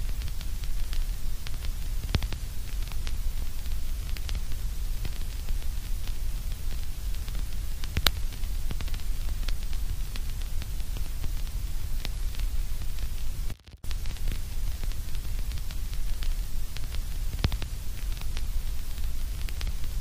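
Steady white-noise static, heaviest in a low rumble, scattered with faint crackles and clicks. It cuts out for a fraction of a second about two-thirds of the way through.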